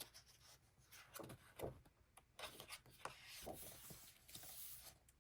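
Faint rubbing and a few soft taps of photo book pages being handled and turned.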